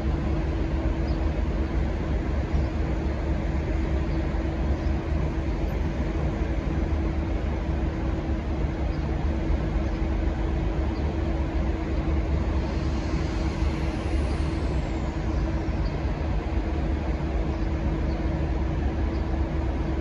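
A V/Line N class diesel-electric locomotive idling steadily at a standstill, its EMD V12 two-stroke diesel giving a constant low rumble with a steady hum on top.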